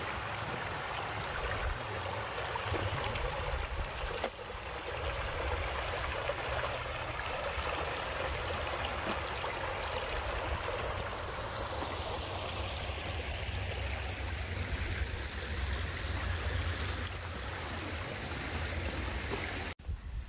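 A forest creek running steadily over rocks, with a low rumble underneath; it cuts off suddenly near the end.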